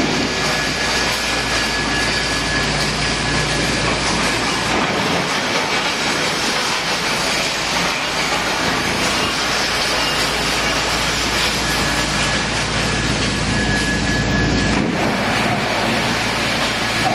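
Wood chipper running, a loud, steady mechanical noise whose low rumble drops away near the end.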